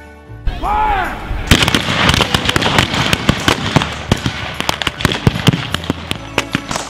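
A rapid, ragged volley of blank gunshots from rifles and revolvers, many cracks overlapping, starting about a second and a half in and going on without a break.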